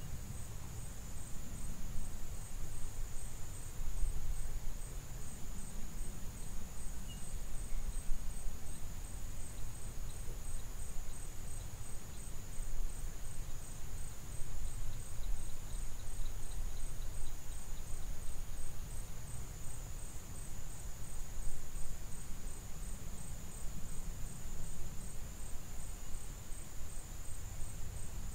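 Insects trilling, a steady high-pitched drone that does not let up, over a low rumbling noise.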